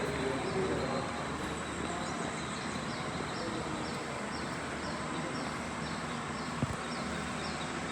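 Steady cabin drone of a turboprop airliner on approach, with engine and airflow noise. A faint high chirp repeats about twice a second, and there is one small click near the end.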